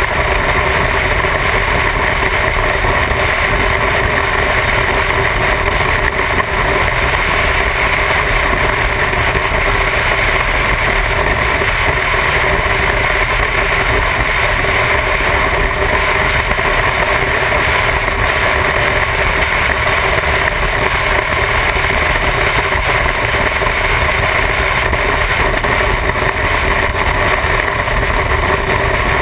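Motorcycle engine running steadily at highway cruising speed, with wind rushing over the bike-mounted microphone.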